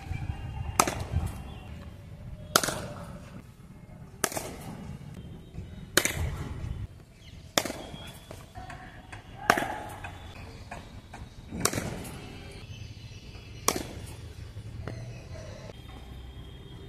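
Cricket bat striking a leather ball in knocking practice, a sharp crack about every two seconds as underarm-thrown balls are hit.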